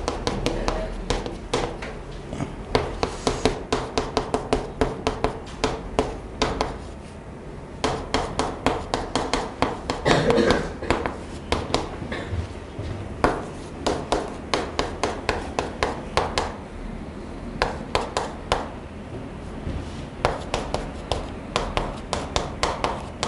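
Chalk writing on a chalkboard: quick runs of sharp taps and short scrapes as each stroke is made, in bursts with brief pauses between words.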